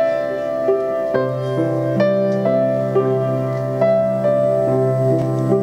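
Slow, gentle instrumental introduction on a keyboard: held chords that change every second or so over a low sustained bass note.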